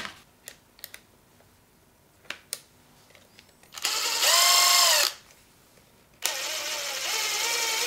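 Makita cordless impact driver running with no load, twice. Each run is a whine that rises as the motor spins up: a short burst about four seconds in, and a longer one from about six seconds. Earlier there are a few light clicks as the hex bit is handled and fitted into the chuck.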